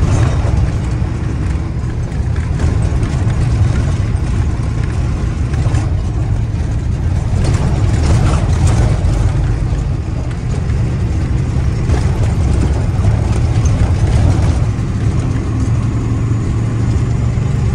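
Cargo truck's diesel engine and road noise heard from inside the cab while driving, a steady low drone that hardly changes. The truck is running unladen.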